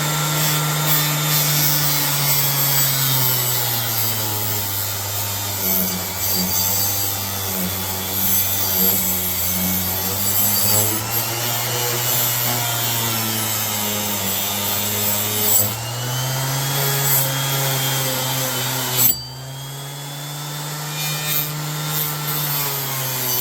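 Orbital sander with a 220-grit Diablo disc grinding a rusty steel scraper blade. The motor hum sags and rises in pitch as the sander is pressed onto the metal, over a gritty scraping hiss. The sound drops off sharply about nineteen seconds in, then builds back up.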